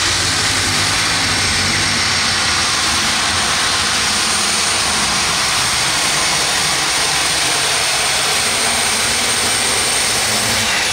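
Turbocharged, alcohol-burning light super stock pulling tractor engine running flat out through a pull, a loud steady howl with a high turbocharger whine held over it. It falls away near the end.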